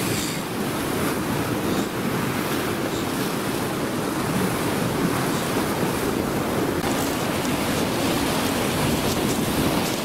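Steady sea surf washing against the shore, mixed with wind buffeting the microphone.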